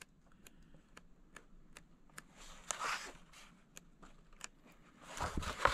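Paper pages of a book being leafed through: light ticks and soft rustles, with a louder page-turn swish about three seconds in and another near the end.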